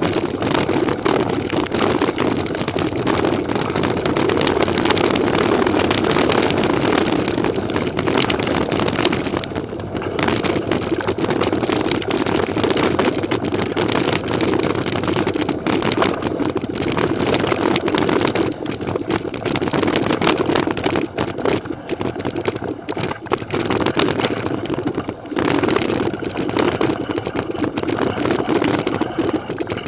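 Mountain bike ridden over a rough dirt trail, heard from a camera on the move: a continuous rumble of tyres on the ground and a rattle of the frame and mount, full of small knocks. It eases off briefly twice.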